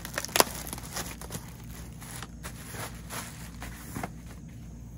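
Clear plastic packaging crinkling and rustling as kayak rack parts are unwrapped and handled, in irregular crackles with one sharper, louder crackle about half a second in.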